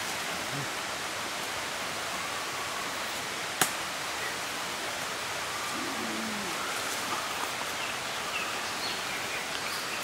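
Steady, even hiss of forest background noise, with a single sharp snap about three and a half seconds in and a few faint short calls a little past the middle.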